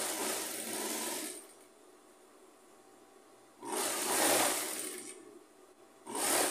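Industrial single-needle sewing machine stitching fabric in short bursts: it runs for about a second and a half, stops, runs again about three and a half seconds in, and starts a third time near the end.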